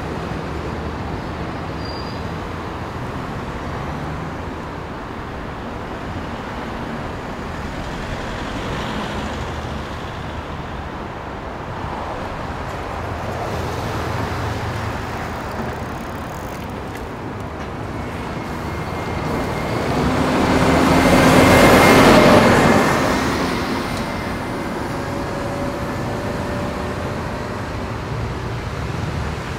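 City road traffic running steadily. About two-thirds of the way through, one vehicle passes close, rising to the loudest point and then fading away.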